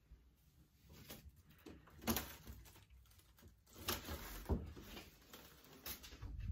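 Handling noise from a handheld phone camera being carried while walking: a handful of scattered soft knocks and rustles.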